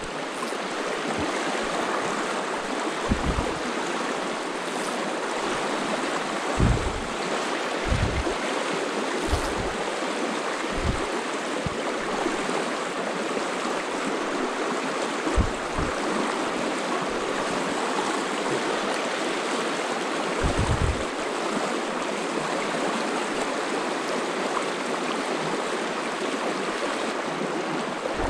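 Freestone stream rushing over rocks in a steady wash, heard close to the water. A few short low thumps come and go.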